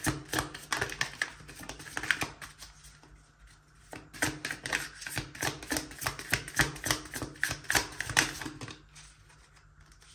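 A deck of tarot cards being shuffled by hand: rapid card clicks that pause for about a second around three seconds in, then run on again and stop shortly before the end.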